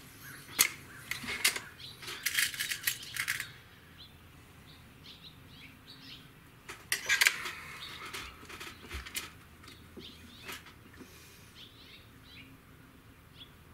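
A .22 Hatsan 95 Vortex gas-piston break-barrel air rifle being cocked and loaded between shots. A string of sharp clicks and rattles comes as the barrel is broken open and cocked. About seven seconds in there is a louder cluster of clicks as the pellet is seated and the barrel closed, then a few small clicks.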